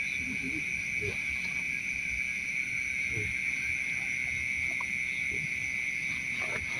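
Night insects chirring without a break: one shrill steady tone with fainter higher ones above it. Faint, scattered low murmurs and rustles sit underneath.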